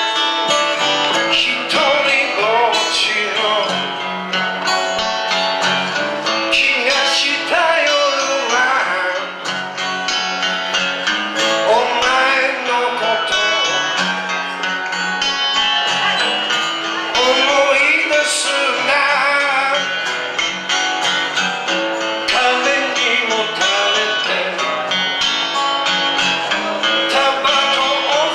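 Live band music: an acoustic guitar strumming chords while a man sings into a microphone.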